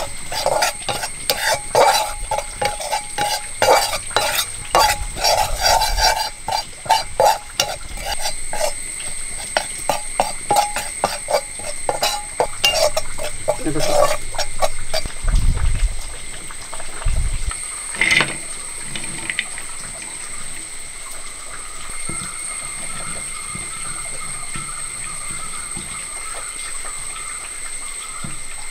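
A spoon stirring and scraping dry spice powders around a metal wok while they roast: quick, rapid scraping strokes for about the first half, then a few dull thuds and a single sharp click, after which it goes quieter.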